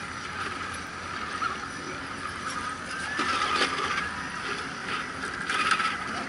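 Electric motors of radio-controlled scale crawler trucks whining as they climb. A few brief louder bursts, about halfway through and near the end, come from tyres scrabbling on loose dirt and gravel.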